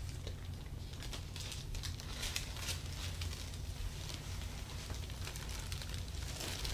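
Hands rubbing and kneading during a massage, with irregular soft rustling and crackling of skin and cloth, over a steady low hum.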